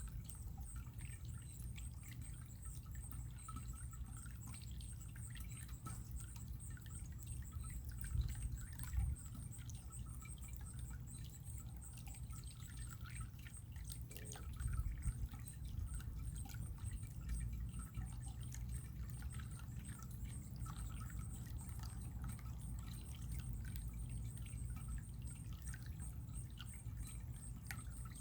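Running water trickling steadily, with many small drips and splashes scattered through it and a few louder splashes.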